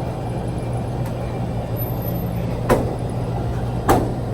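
Steady low hum of a vehicle's engine, heard from inside the vehicle, with two short sharp clicks or knocks a little over a second apart near the end.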